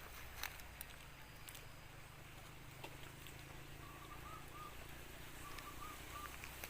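Quiet outdoor ambience by a small river, with a steady low rumble and a few sharp clicks in the first second and a half. Two short runs of faint, quick chirps come in the second half.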